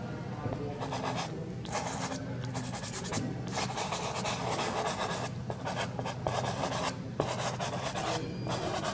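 Soft pastel stick dragged on its flat side across textured pastel paper, in a run of rubbing strokes each half a second to a second or so long, with short pauses between them.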